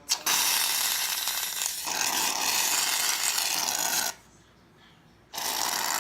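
Aerosol can of shaving cream spraying in two long hissing bursts, the first about four seconds and the second shorter, near the end, with a sharp click just as the first one starts.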